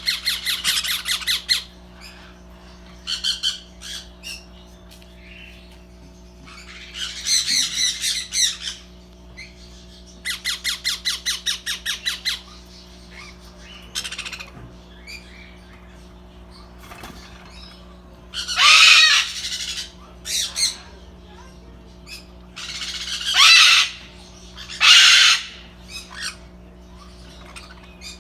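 Young parrots calling: bursts of rapid, evenly repeated squawks, then several loud harsh screeches in the second half, over a steady low hum.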